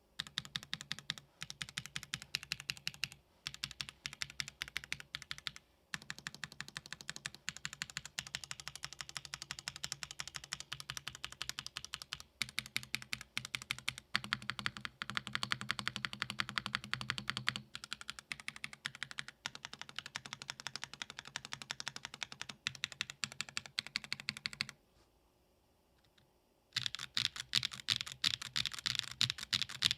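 Fast, continuous typing on a Tofu65 2.0 custom mechanical keyboard with Gateron Baby Raccoon switches and PBT keycaps, a rapid run of key clacks broken by a few short pauses and one of about two seconds near the end.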